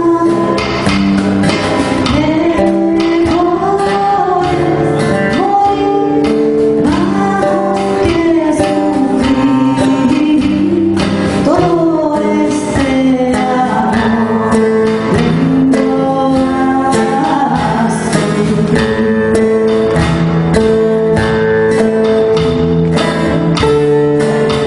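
A woman sings a Sephardic song over two acoustic guitars. Her voice drops out about three-quarters of the way through, leaving the guitars playing on alone.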